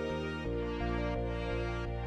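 Background music with a steady pulse; the chord changes about half a second in.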